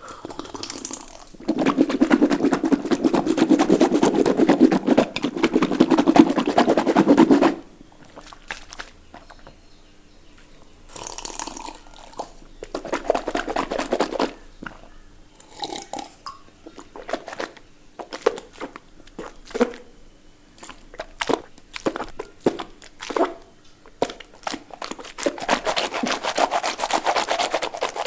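Wet water sounds made in the mouth: a long stretch of dense gurgling and crackling, then separate wet clicks and drips with shorter gurgling bursts, and another longer burst near the end.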